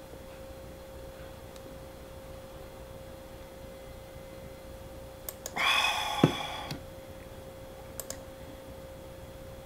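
A breathy exhale of about a second after a long drink from a stainless steel tumbler, with a sharp knock in the middle of it, then two light clicks as the tumbler is set on the desk. A faint steady tone runs underneath.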